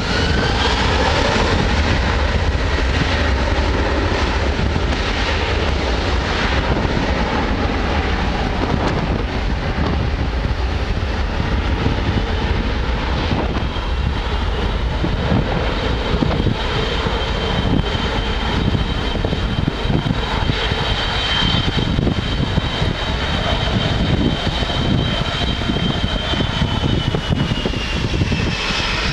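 Airbus A330's twin General Electric CF6 turbofans at takeoff thrust on the takeoff roll: a loud, steady jet roar with a whining tone that rises in the first second or two, holds, then falls away near the end as the aircraft passes and lifts off. Strong wind rumbles on the microphone underneath.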